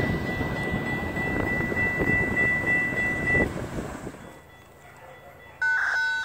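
Railroad grade crossing bell ringing steadily over a broad rumble, cutting off about three and a half seconds in as the gates rise; the rumble fades out soon after. Near the end there is a short, loud blast of a train horn.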